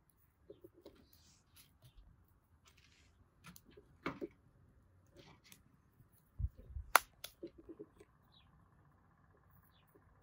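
Sparse light clicks and taps of objects being handled. A couple of low thumps come about six and a half seconds in, followed by a sharp click, the loudest sound.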